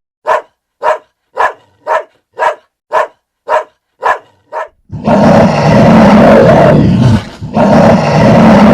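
An animal calling: nine short barks about half a second apart, then two long, loud roars from about five seconds in.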